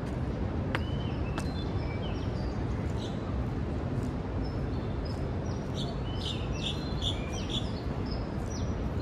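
Small birds chirping over a steady low rumble of city background noise, the chirps growing busier about six to eight seconds in. There are two short clicks about a second in.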